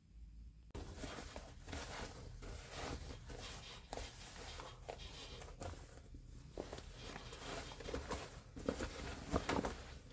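Faint scattered rustles and soft clicks of handling, a little busier near the end.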